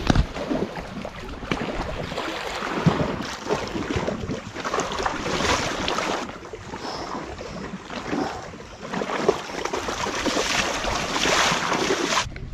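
Wind buffeting the microphone over choppy lake water lapping at a stony shore, with splashing from a person wading through the shallows.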